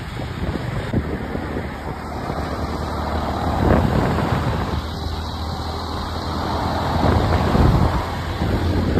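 Ford Super Duty pickup's 6.7-litre Power Stroke V8 turbodiesel running with a steady low drone as it drives past close by, swelling in level about halfway through. A second vehicle passes near the end, with wind buffeting the microphone throughout.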